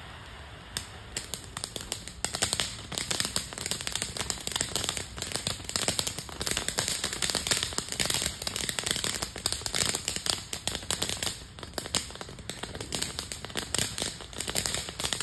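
Ground fountain firework spraying sparks: a steady hiss that turns, about a second in, into dense, rapid crackling pops that carry on in uneven waves.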